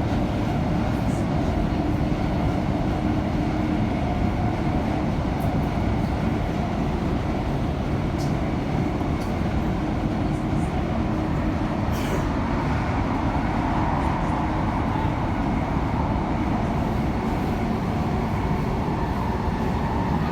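Inside a Class 345 Elizabeth line train running at speed through a tunnel: a steady, loud rumble of wheels on rail, with a low hum that fades away in the first few seconds and a short sharp click about twelve seconds in.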